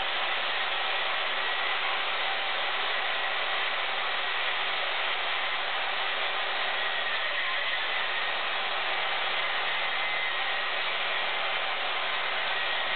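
Craftsman 10-amp, 2-1/8 HP circular saw running steadily as it rips lengthwise through a pine board, a steady whine over the noise of the cut.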